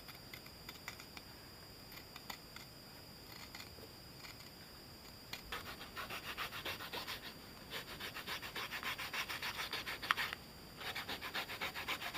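Hands rubbing a rolled piece of leather back and forth in a fast, even rasping rhythm of about six strokes a second. It starts about five seconds in, breaks off briefly near the end, then resumes. Before it come only a few faint clicks.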